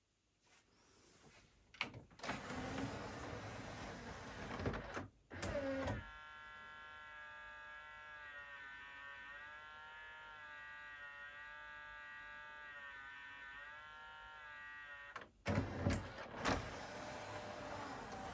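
Pioneer CLD-D504 LaserDisc player's mechanism running: a few seconds of whirring and clunking, then a steady, faint motor whine with a wavering pitch for about nine seconds, then a couple of clunks near the end.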